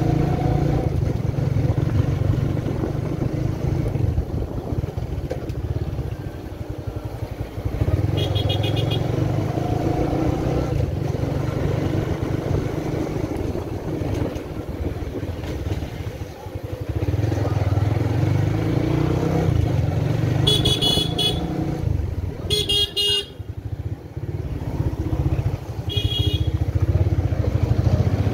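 Motorcycle engine running at low speed through the ride, easing off and picking up again several times. Four short, high-pitched horn toots cut through it.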